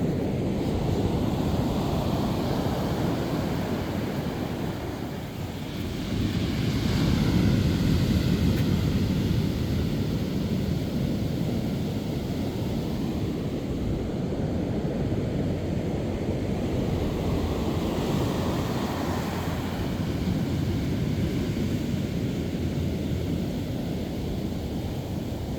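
Ocean surf breaking on a sandy beach: a steady rush that swells twice as waves come in, with wind buffeting the microphone.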